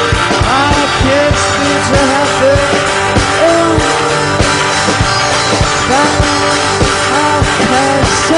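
A punk rock song playing: electric guitar with bending notes over drums keeping a steady beat.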